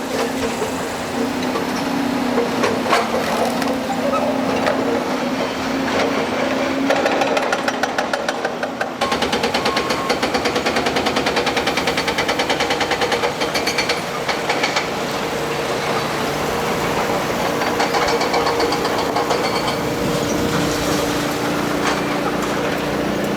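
Excavator's diesel engine running with a steady drone and mechanical rattling. About nine seconds in the sound changes abruptly to a fast, even clatter, then settles back to a steadier running sound.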